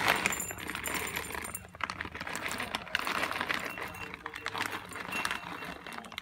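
Dry cat kibble poured from a plastic bag, rattling and clinking into a cut-glass dish, with a kitten eating from it. The rattling is heaviest in the first second or so.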